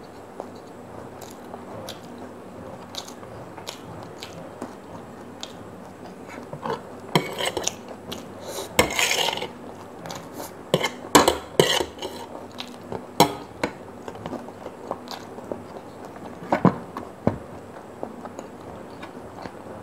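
Metal fork clinking and scraping on a ceramic plate while gathering noodles, in scattered sharp clicks and short scrapes, with close-up chewing between them.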